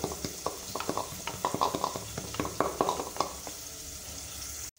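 Wooden pestle knocking rapidly in a wooden mortar, pounding roasted groundnuts, several strikes a second, easing off after about three seconds. A steady sizzle of frying runs underneath.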